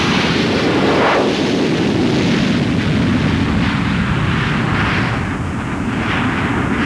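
Jet fighter engine in full afterburner on a takeoff roll: a loud, rough roar that comes in suddenly and holds, surging unevenly every second or so.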